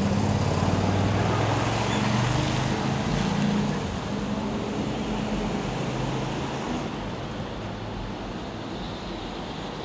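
Rumble of a passing vehicle with a low steady hum, loudest at first and fading after about four seconds into steady traffic noise.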